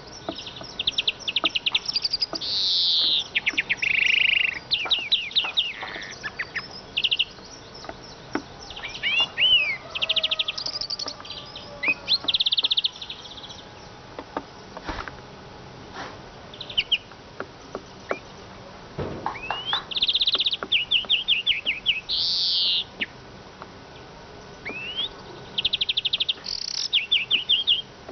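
Eurasian siskin singing: bursts of rapid chirping trills, with a few rising sweeping notes, broken by short pauses.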